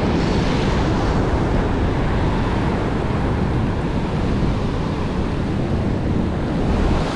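Ocean surf breaking and washing against a rocky shoreline, a steady rushing noise, with wind buffeting the microphone.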